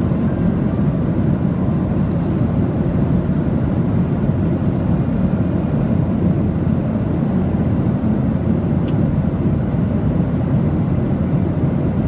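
Steady low rumble of a jet airliner's engines and airflow in cruise, heard from inside the passenger cabin.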